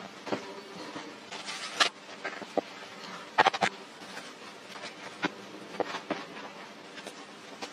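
Scattered knocks, clacks and scrapes of stones being set and wet mud being worked by hand and with a wooden board, the sharpest clacks a little under two seconds and about three and a half seconds in.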